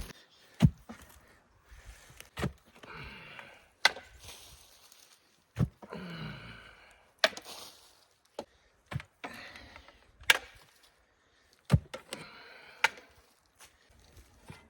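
A shovel digging dry clay soil by hand: about ten sharp knocks of the blade biting into the ground, several followed by a scraping rustle as the dirt is lifted and thrown.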